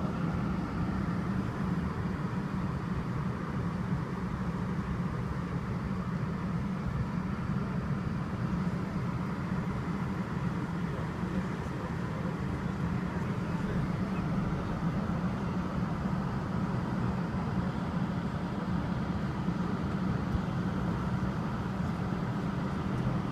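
A bus's engine and road noise: a steady low drone heard from inside the vehicle.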